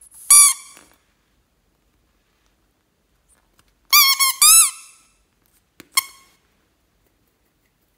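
Cupcake-shaped vinyl squeeze toy squeaking as it is squeezed by hand. One short squeak comes just after the start, three squeaks follow in quick succession about four seconds in, the last two bending up and down in pitch, and one more short squeak comes at six seconds.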